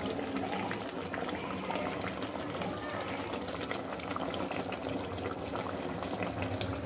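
Mutton and masala sizzling and bubbling in an open pressure cooker, a steady crackle of small pops as the meat is sautéed (kasha) in its spices.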